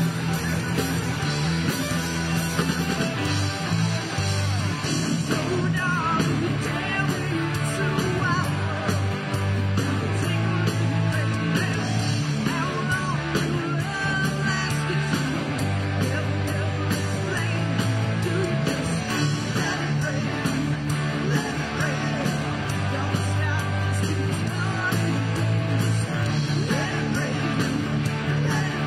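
Rock band playing electric guitar over bass and drums, with a guitar line bending notes at several points.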